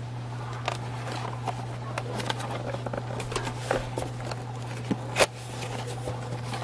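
A cardboard tool box being handled and opened: scattered taps, scrapes and rustles, with one sharper knock about five seconds in, over a steady low hum.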